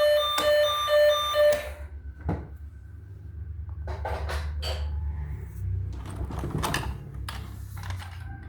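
A toy emergency vehicle's electronic two-tone siren beeps for under two seconds and cuts off suddenly, followed by scattered clicks and knocks.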